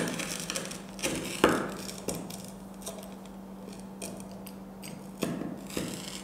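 Pizza cutter wheel cutting through crunchy pan-toasted bread topped with melted cheese, a few short crunches as it rolls and presses through the crust onto the plate, the loudest about a second and a half in. A low steady hum runs underneath.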